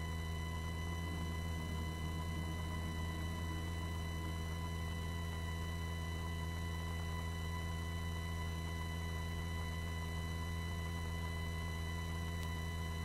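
Steady low hum of the helicopter's intercom audio line with the microphones closed, carrying a few faint, thin, steady whistling tones above it.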